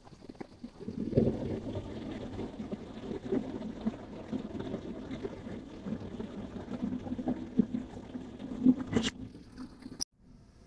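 Low, irregular rumbling and rustling of a handheld camera being moved about, over a faint steady hum. A sharp click about ten seconds in, then it cuts off.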